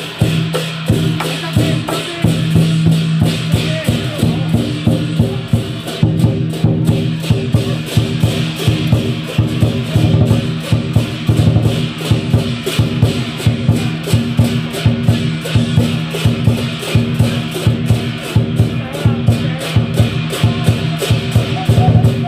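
Lion dance percussion of big drum, hand cymbals and gong playing a fast, steady beat.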